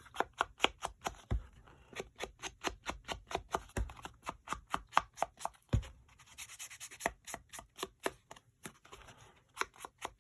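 Scissors snipping paper in quick short cuts, about five a second, trimming the edges of rice-paper tags, with a brief rustle of paper a little past the middle.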